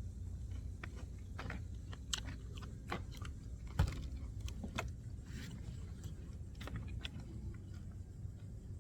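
A person biting into and chewing crunchy food, with irregular crisp crackles and one sharp snap a little before the middle, over a steady low rumble.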